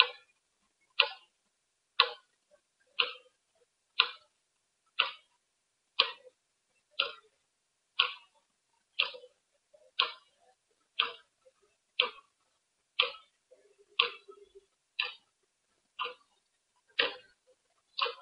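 Clock ticking steadily, one sharp tick every second, with dead silence between the ticks.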